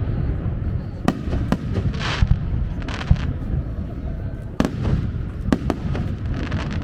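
Aerial fireworks bursting: a string of sharp bangs, some close together, with stretches of crackling fizz and a steady low rumble underneath.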